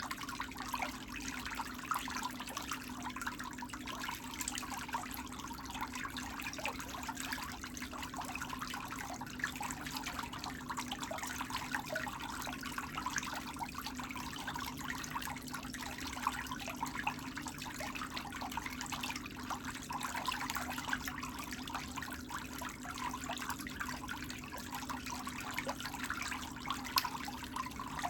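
Water trickling and splashing steadily over a low, constant hum.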